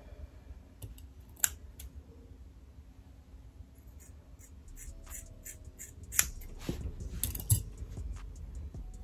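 Scissors snipping through curly hair as heat-damaged ends are cut off: a single snip about a second and a half in, then a quick run of snips from about four to eight seconds in.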